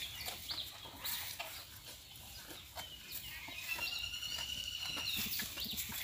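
A rooster crows once, a long arched call of about a second and a half in the second half, with scattered short clicks and chirps around it.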